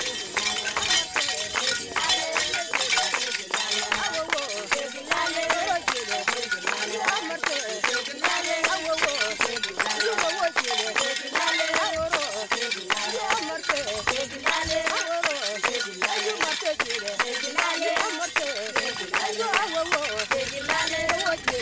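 A group of people singing together for a dance, with many sharp clicks and clinks throughout.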